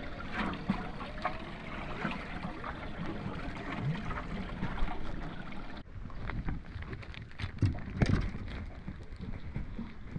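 Wind and water noise on the open deck of a small fishing boat, with scattered knocks and handling sounds. The sound breaks off abruptly about six seconds in and picks up again.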